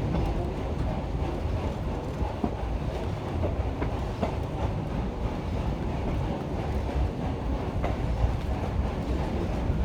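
Black Hills Central Railroad passenger train rolling along the track: a steady low rumble from the cars, with a few scattered clacks of the wheels over rail joints.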